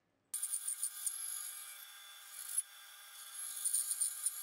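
Bandsaw cutting a small block of dark wood: a steady thin whine from the running blade under a scratchy rasp of cutting that swells and eases. It starts suddenly about a third of a second in.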